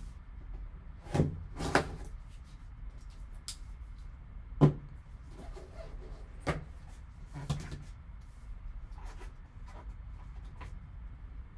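Cardboard trading card box and its packaging being handled and opened by hand: a series of separate knocks and clicks, the loudest about four and a half seconds in.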